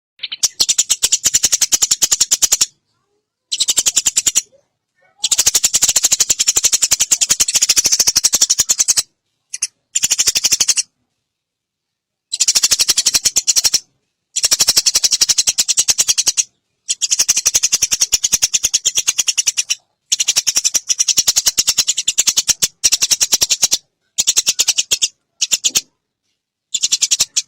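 Eurasian tree sparrow giving long rapid chattering calls, fast runs of dry high ticks in bursts of one to three seconds separated by short silent gaps.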